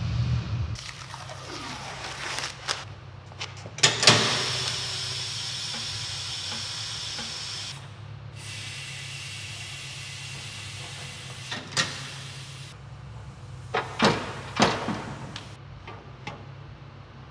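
Tire-shop compressed air hissing in two long stretches, with sharp metal clacks about four seconds in and again near the end, as a wheel is worked on and set on a tire changer. A steady low hum runs underneath.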